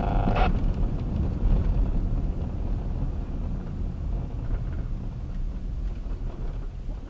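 Steady low rumble of a vehicle's engine and road noise, heard from inside the cab through the dashcam, slowly fading. A held tone cuts off about half a second in.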